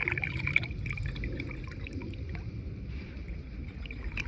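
River water splashing and trickling as hands work in the shallows, with many small sharp ticks and splashes, busiest in the first second.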